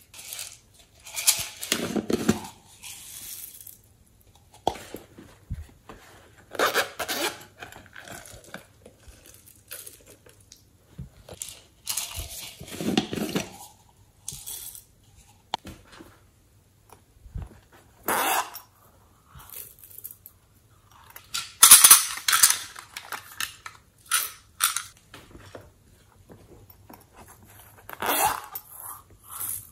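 Separate handling noises as slime ingredients go into a glass bowl: plastic containers and a pouch being opened and tapped, and a cup of thick white liquid poured in. Short rustling and clacking bursts every few seconds.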